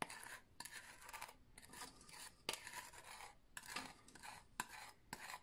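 Wooden spoon scraping a thick egg-yolk and brown-sugar mixture out of a bowl into a saucepan: faint, uneven scraping strokes with a few light clicks of utensils against the bowl and pan.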